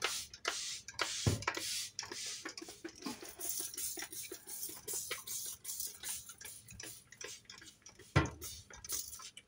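Trigger spray bottle squeezed over and over, each squeeze a click with a short hiss of spray, spraying cleaner onto a baking-soda-covered oven interior. Two heavier knocks stand out, one about a second in and a louder one near the end.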